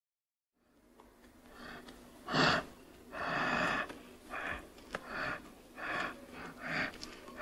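Cheetah making a series of short breathy sounds, one roughly every second, beginning just after the start; the loudest and sharpest comes about two and a half seconds in, followed by a longer one.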